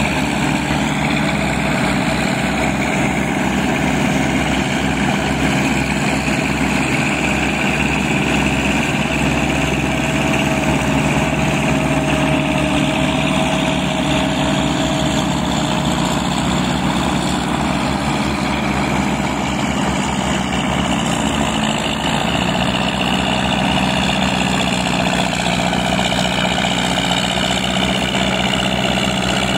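Farm tractor on rear half-tracks, its diesel engine running steadily under load as it pushes mud with a front blade through a flooded paddy. The engine note shifts slightly about two-thirds of the way through.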